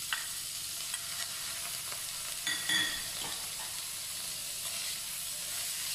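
Thinly sliced beef sizzling in hot vegetable oil and chopped garlic in a frying pan: a steady hiss that starts as the meat goes in. There is a short metallic clink near the middle.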